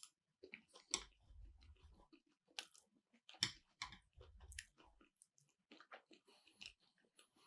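Faint close-up chewing of keto sushi, with small wet mouth clicks scattered throughout. Two short low thumps come about a second in and around four seconds.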